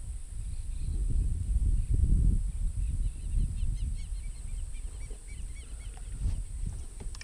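Wind buffeting the camera microphone in gusts, with a bird calling a quick run of short chirps about three to five seconds in.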